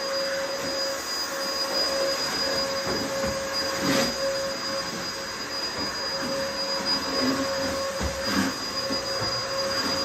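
Vacuum cleaner running with a steady whine over a hiss, with brief knocks about four and eight seconds in.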